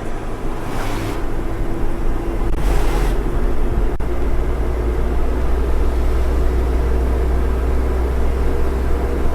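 A lorry driving at speed, heard from inside the cab as a steady engine and road rumble with a steady hum. Two short hisses come about a second in and about three seconds in.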